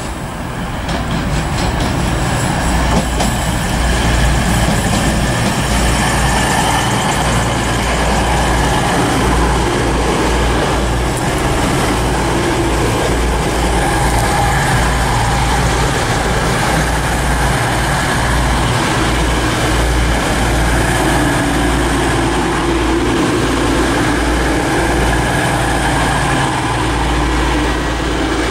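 Class 222 Meridian diesel multiple unit running past on the adjacent track. Its diesel engines and wheels give a loud, steady rumble that builds over the first couple of seconds and then holds.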